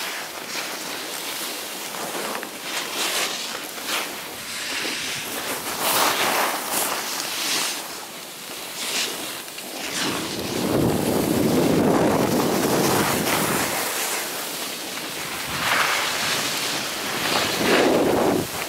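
Wind rushing over a moving microphone together with the hiss and scrape of a snowboard sliding and carving over packed snow. The rushing comes in uneven surges and grows fuller from about halfway through.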